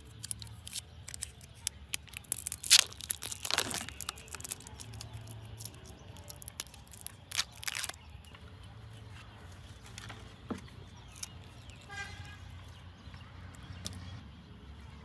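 Thin plastic film lid being peeled off a plastic jelly cup, crinkling and tearing with sharp clicks. It is loudest in the first few seconds and again about seven seconds in, then drops to a few light clicks of plastic being handled.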